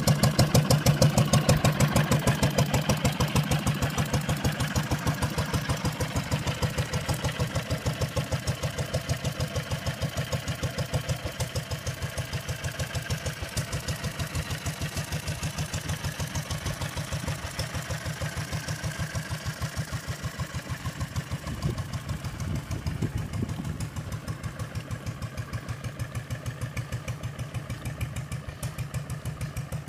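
Wolseley WD2 single-cylinder air-cooled stationary engine running steadily with an even firing beat, belt-driving a small water pump; the beat slowly grows fainter.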